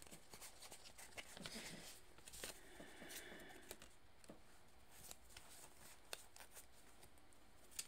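Faint hand-shuffling of a tarot deck: soft, scattered clicks and card rustle.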